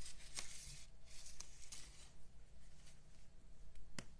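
Faint rustles and light taps from handling small paper pieces and a pointed craft tool on a tabletop, with one sharp tap near the end.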